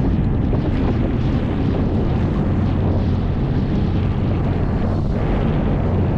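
Outrigger boat's (bangka's) engine running steadily under way, a constant low drone, with wind noise on the microphone.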